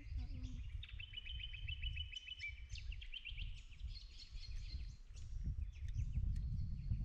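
Birds calling: a rapid trill about a second in, then a thin high whistle later on, over a steady low rumble.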